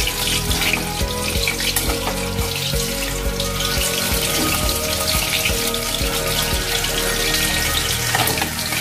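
Battered chicken pieces deep-frying in hot oil in a kadhai: a steady sizzle full of small crackles and pops, over background music.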